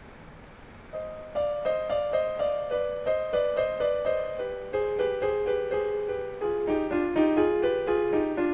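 Background piano music: a gentle melody of quick, evenly paced notes, about four a second, that comes in about a second in after a soft lull.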